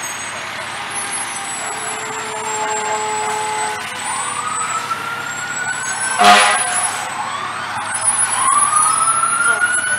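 Fire truck sirens winding up: one wail rising from about four seconds in, and a second rising and then falling near the end. A short, loud horn blast about six seconds in is the loudest sound, over a steady low rumble.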